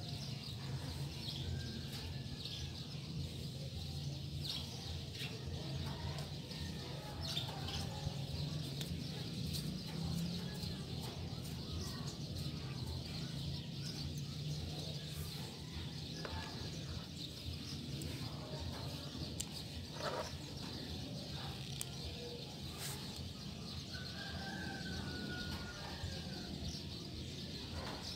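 Steady low hum with faint birds chirping now and then, clearest near the end, and a few soft knocks.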